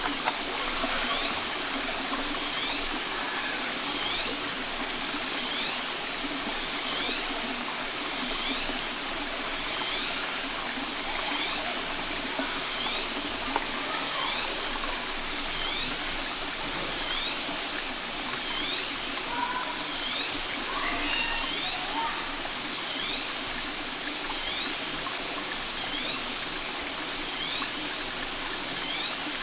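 Steady rush of water over the rocks of a shallow stream, with a short, high, rising chirp repeating about every second and a half.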